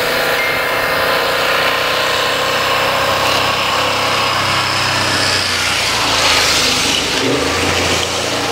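Class 47 diesel locomotive hauling a passenger train towards the listener, its engine working hard with a steady drone whose lowest note deepens near the end.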